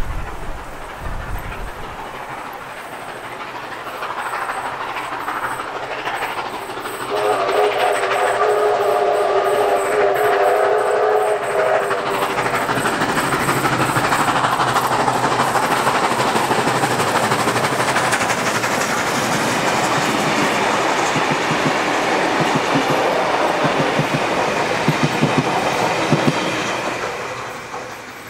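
NSW C36 class steam locomotive 3642 approaching and passing with its train. About seven seconds in it sounds a chime whistle for about five seconds. Near the end the wheels click over the rail joints as it goes by.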